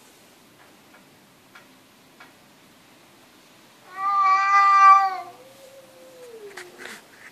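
Domestic cat meowing: one loud, drawn-out meow about four seconds in, lasting over a second, followed by a fainter call that slides down in pitch.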